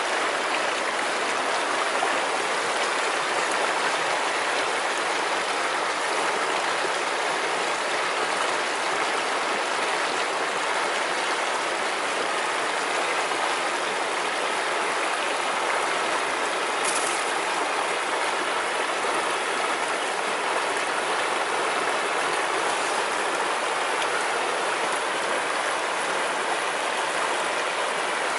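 River water rushing and splashing in a steady, even stream of noise.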